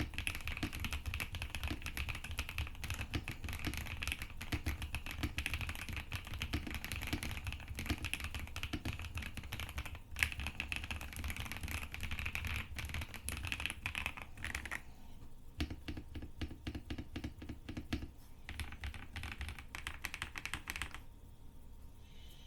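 Typing on a Weikav WK75 custom mechanical keyboard with Akko Cream Yellow linear switches and Cherry-profile keycaps. Fast, continuous keystrokes change about two-thirds of the way through to slower, evenly spaced strokes, which trail off near the end.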